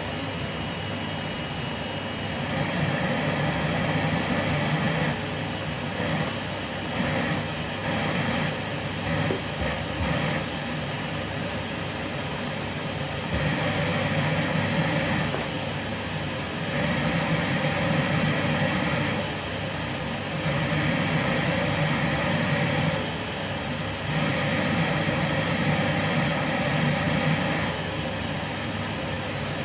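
Vacuum cleaner motor running with heavy suction, a dense steady hiss under a thin high whine. Its loudness swells and drops every couple of seconds.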